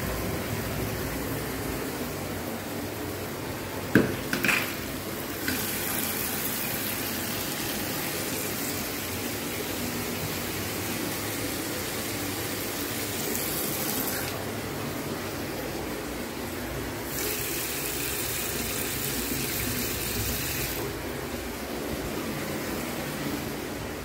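Tap water rushing at strong pressure from a bathtub spout and a bathroom sink faucet, in a steady stream, with the supply's pressure just restored by a repair. A sharp knock about four seconds in, and the rush changes several times as taps are opened and closed.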